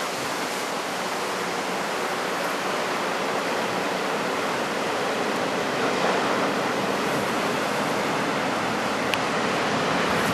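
Heavy typhoon-swell surf breaking, a steady rushing noise with no letup, and a faint click about nine seconds in.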